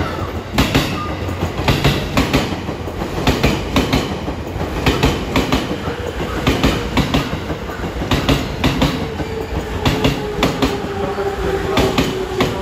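E257 series 2000 electric train rolling into a station platform, its wheels clicking over the rail joints in quick pairs and clusters (clickety-clack). A steady whine joins about halfway through.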